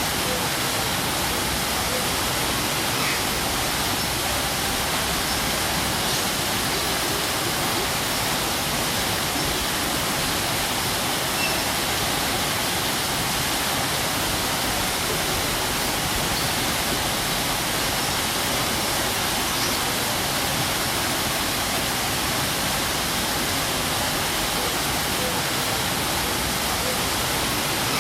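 Waterfall water falling and splashing in a steady, unbroken rush.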